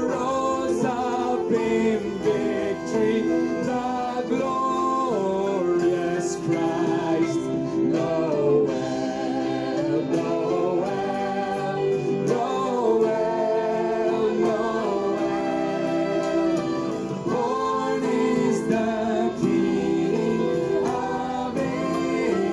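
A gospel-style religious song: voices singing with vibrato over sustained instrumental chords.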